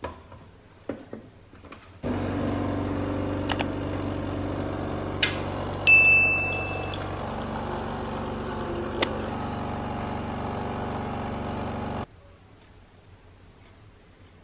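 A few light clicks as a glass cup is set on the drip tray of a Nescafé Dolce Gusto capsule coffee machine. The machine's pump then hums steadily while it dispenses milk into the glass, stopping abruptly near the end. About halfway through there is a single clear ding that rings for about a second.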